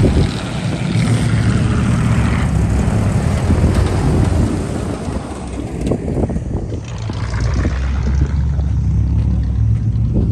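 Off-road truck's engine running with a deep, continuous drone, harsher in the first two or three seconds as the vehicle drives past.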